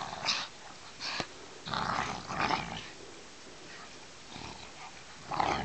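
Two dogs playing nose to nose in the snow, with several short bursts of growling.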